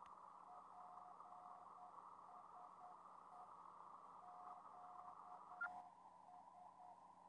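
Faint Morse code signal received by a Kenwood TS-2000 on the 6-metre band: a steady tone keyed on and off in dots and dashes over receiver hiss shaped by the narrow 500 Hz CW filter. A short sharp blip about five and a half seconds in, after which the hiss narrows slightly.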